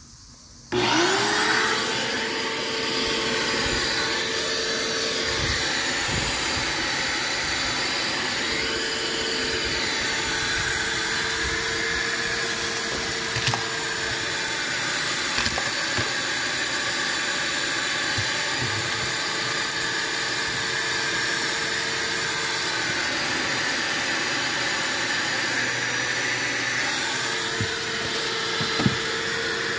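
Wet/dry shop vacuum switched on about a second in, its motor spinning up with a rising whine and then running steadily as the hose vacuums a car's floor carpet. A few short clicks come through, and the whine dips slightly in pitch now and then.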